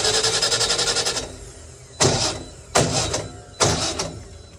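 Natural gas generator engine cranking on its starter without firing, then the starter cutting in again in short bursts less than a second apart: a crank-no-start, which the technician takes for a loose connection somewhere.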